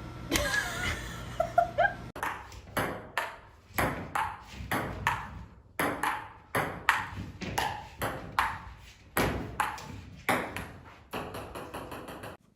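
A run of sharp ringing pings, about one or two a second, each dying away quickly, cutting off suddenly near the end.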